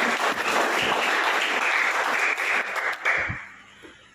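A crowd applauding: dense, many-handed clapping that dies away about three seconds in, with one louder thump as it ends.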